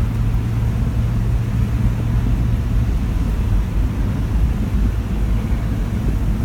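A 4x4 SUV driving on beach sand: steady low engine and tyre rumble with wind buffeting the microphone. A steady low engine hum drops away about halfway through.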